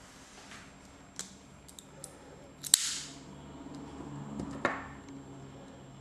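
Metal clicks and snaps from the mechanism of a Maniago-made Medici-pattern automatic (switchblade) knife being worked by hand: a few light clicks, then a sharp snap about three seconds in and a second strong click a couple of seconds later.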